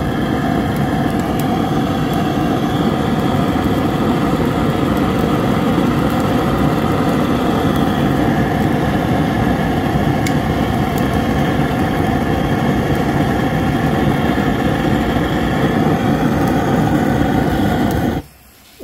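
Handheld butane torch on a gas canister running steadily, its flame held against charcoal to light it. It shuts off suddenly near the end.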